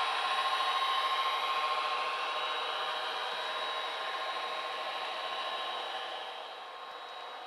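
HO-scale model freight cars rolling past on the track: a steady rolling rush of wheels on rail with a thin steady whine, growing quieter about six seconds in.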